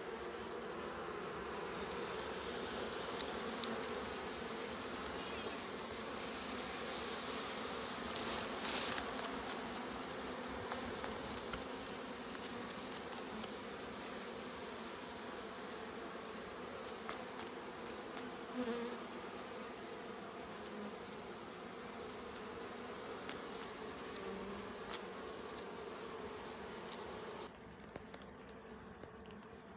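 A wild colony of honey bees buzzing in a dense, steady hum while their nest in a hollow tree trunk is opened and the comb is taken out. A few sharp clicks come through, and the hum drops suddenly in level near the end.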